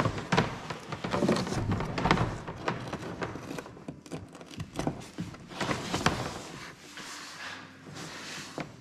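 Handling noise: an irregular run of knocks, clicks and rustling as parts and tools are moved about during the installation work.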